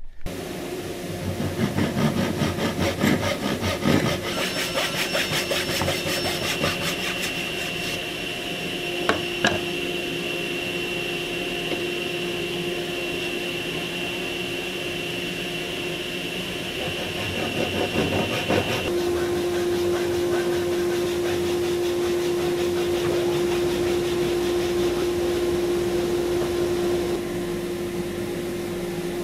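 Hand backsaw cutting into a wooden block held in a vise, with repeated rasping strokes, followed by a few sharp knocks. A steady tone runs underneath.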